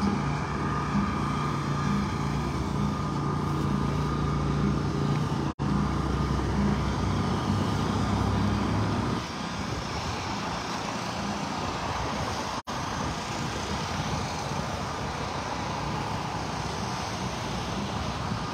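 A nearby engine running steadily with a low, even hum that drops away about nine seconds in, leaving a steady outdoor rush.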